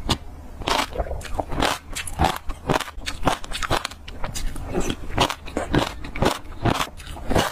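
Close-miked crunching of passion fruit seeds being chewed: sharp, irregular cracks several times a second.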